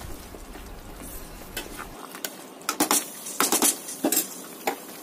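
Metal spoon clinking and scraping against a metal cooking pot as a thick vegetable sambar is stirred, with a quick run of sharp clinks in the second half. A low background hum stops about two seconds in.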